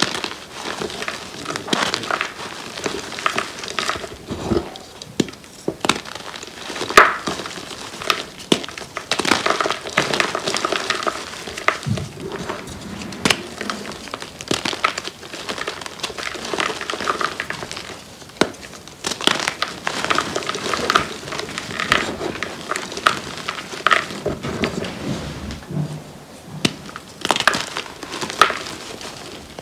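Blocks of reformed gym chalk crushed and crumbled by hand into loose chalk powder: a continuous run of dry crunching and crumbling with irregular sharp snaps, the loudest about seven seconds in.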